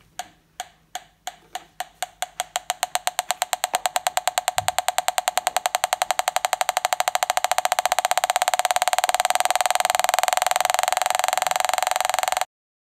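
Electronic gas leak detector ticking, the ticks speeding up from a few a second to a rapid stream and growing louder as the probe picks up more gas at the skirting: a sign of a gas leak. The ticking cuts off suddenly near the end.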